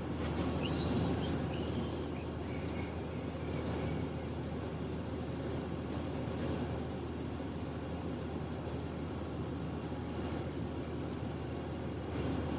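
A steady low mechanical hum with a faint noise haze over it, unchanging throughout.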